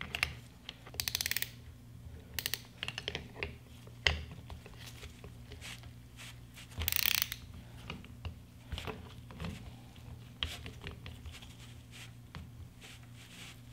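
Hand ratchet clicking in several short runs of rapid clicks, with scattered single clicks between, as it turns a caliper piston tool to wind the screw-type piston out of a rear brake caliper. A steady low hum lies underneath.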